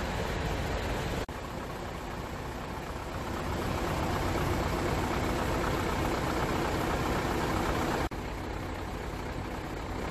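Heavy truck's diesel engine idling steadily; the sound drops out for an instant twice, about a second in and near the end.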